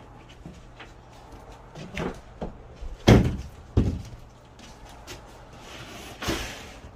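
Large plywood sheets being handled and set upright on a plywood attic floor: several wooden knocks and bumps, the loudest about three seconds in, then a short scraping rub near the end.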